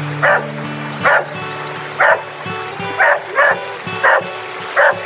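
A dog barking repeatedly, about seven short barks at roughly one a second, over background music.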